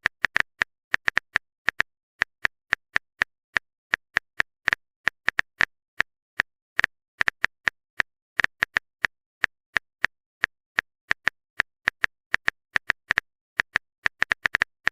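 Typing sound effect: a long string of short, sharp keystroke clicks at an uneven pace, several a second.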